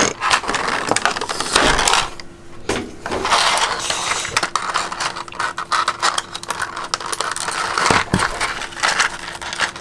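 Clear plastic accessory bags crinkling and crackling as hands work at their taped seal to open them, with a short lull about two seconds in.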